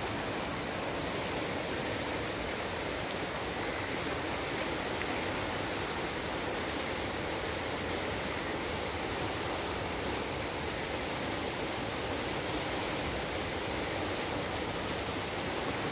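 Muddy floodwater rushing through trees and undergrowth: a steady, even rushing wash of flowing water.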